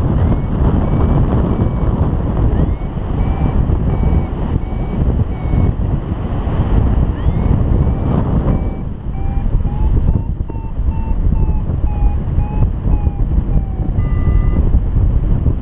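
Paraglider's flight variometer beeping in short repeated tones whose pitch wanders up and down, the beeps signalling that the glider is climbing in lift. Heavy wind rush on the microphone runs underneath.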